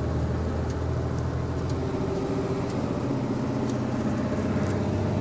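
VW 25.390 truck's diesel engine heard from inside the cab, running steadily on a downhill. Its note changes about halfway through as a gear is shifted up.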